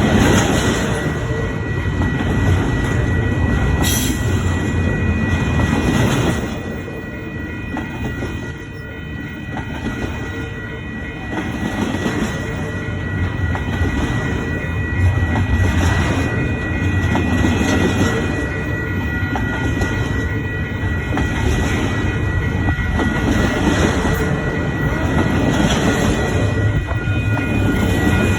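Intermodal freight train cars rolling past, a steady rumble with wheels clicking over the rails in a regular beat and a thin, steady high ringing tone from the wheels and rails. The sound eases briefly for a few seconds about a quarter of the way in.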